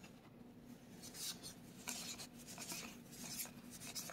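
Trading cards sliding and rubbing against one another as a booster pack is flipped through card by card: a handful of short, soft swishes.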